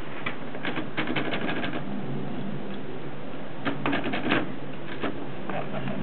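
Contessa Bicolor portable typewriter's keys and typebars clacking in quick runs: about a dozen strokes in the first two seconds, a dense burst around the four-second mark, then a few scattered clicks near the end.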